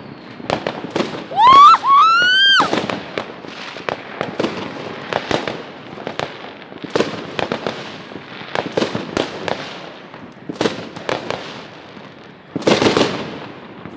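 Fireworks and firecrackers going off all around, many scattered pops and bangs at varying distances. A loud rising squeal sounds about a second and a half in, and a louder burst comes near the end.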